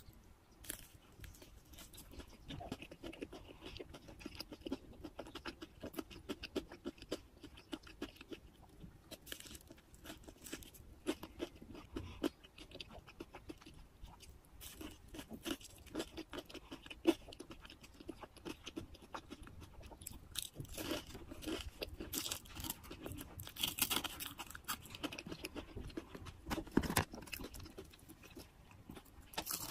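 Close-miked crunching and chewing of a fried, crumb-coated cheese stick: crisp bites and mouth sounds, louder crunching in the last third.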